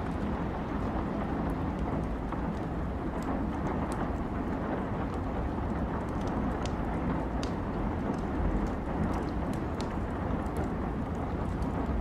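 Wood fire crackling in a fireplace, with scattered irregular sharp pops over a steady low rush of rain.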